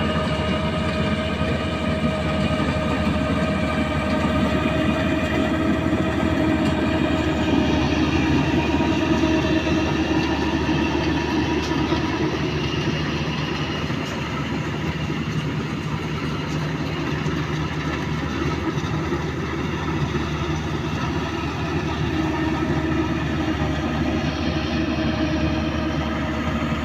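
Kubota DC-35 combine harvester running steadily: its diesel engine drones low, under several high steady whines from the machinery.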